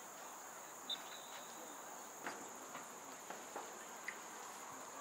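Steady high-pitched insect chorus, with a few faint sharp knocks scattered through it.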